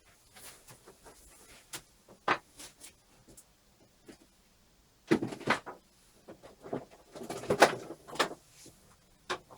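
Clicks, knocks and clattering of computer cables and parts being handled and plugged in, with two louder bursts of rattling about five and seven seconds in.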